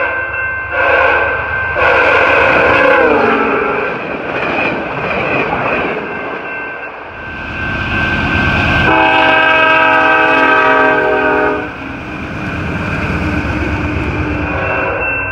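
Diesel locomotive horn sounding for a level crossing: a short blast and a longer one that falls in pitch as it ends, then a long blast around the middle. Underneath, the crossing signal rings with a steady high tone and a passing train rumbles and clatters.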